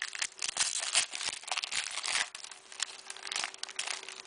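Crinkling and rustling as a foil trading-card pack wrapper and its basketball cards are handled, busiest in the first couple of seconds and thinning out toward the end.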